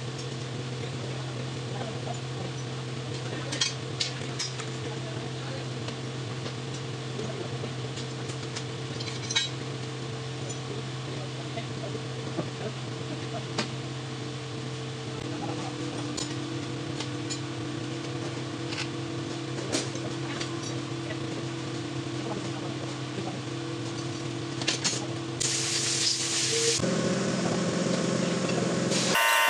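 Light metallic clinks of hand tools and metal parts being handled, scattered through a steady low machine hum. Near the end a loud hiss lasts about a second and a half.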